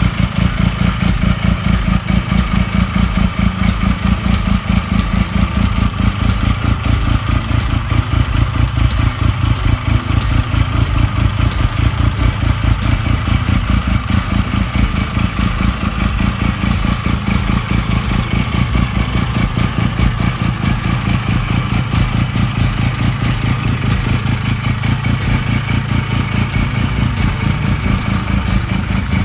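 Hercules Wankel motorcycle's single-rotor, fan-cooled rotary engine running steadily at idle, a fast, even exhaust pulse.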